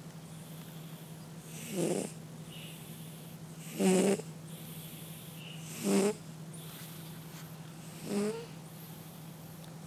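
A sleeping cat snoring: four short snores, one about every two seconds, over a steady low hum.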